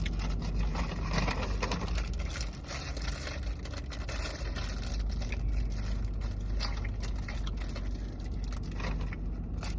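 Crackers being crinkled, broken and scraped onto a bowl of soup: irregular rustling, crunching and light clicks over a steady low rumble.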